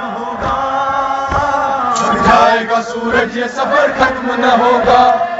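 Men's voices chanting a noha, the Shia mourning elegy for Imam Hussain, in a melodic recitation. Low thumps run underneath at about one a second.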